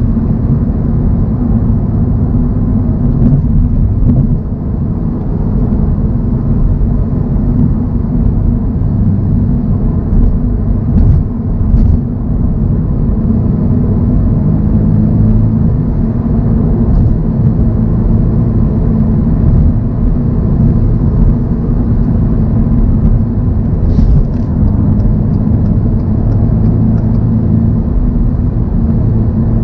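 2024 Toyota GR86's 2.4-litre flat-four engine running at a steady cruise, with a deep drone and tyre and road noise, and a few faint ticks.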